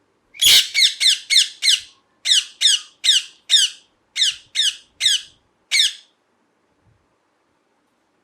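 Ringneck parrot giving a rapid series of about a dozen loud, harsh squawks, each falling in pitch, in runs of three to five with short breaks.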